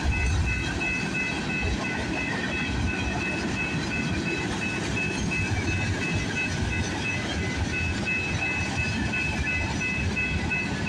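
Freight train's cars rolling past: a steady rumble of steel wheels on the rails, with high tones pulsing on and off throughout.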